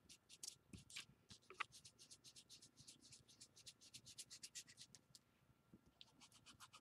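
Faint, rapid scratchy strokes of a round ink blending tool being rubbed over the edge of a thin old book page to distress it with ink, about four or five strokes a second. The strokes pause briefly near the end, then resume.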